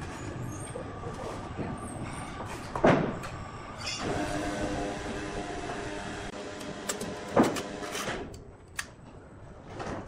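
Sawmill workshop noise with machinery running, a steady hum for a few seconds in the middle, and two loud knocks: one about three seconds in, another past seven seconds.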